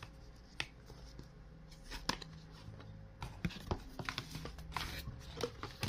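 Hands handling a cardboard toy box and a card sticker book: scattered light taps, slides and rustles of card and paper.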